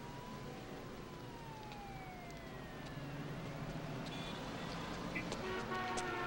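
City street traffic noise with a distant siren wailing, its pitch slowly rising and then falling. Several steady tones enter near the end.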